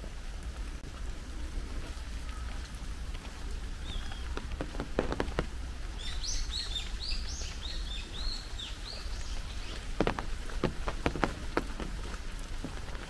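Steady rain falling on trees and paths, with a bird twittering a quick run of chirps about halfway through. A few sharp taps stand out around the middle and near the end.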